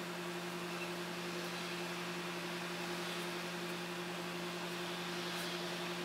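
Steady low electrical hum from a small motor or appliance, one even pitch with an overtone, over a faint hiss of room noise.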